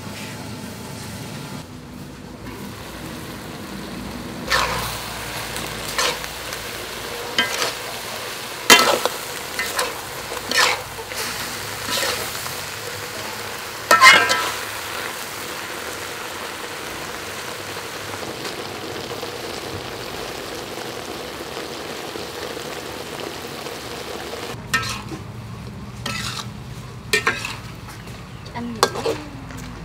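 Stir-frying in a wok: food sizzling steadily in hot oil while a metal spatula scrapes and knocks against the pan, in strokes a second or two apart, with a quick cluster of knocks near the end.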